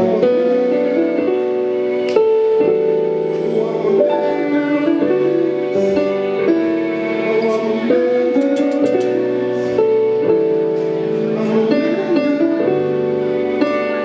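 Live band playing slow sustained chords that change every second or so, with a few light cymbal taps and no steady drum beat.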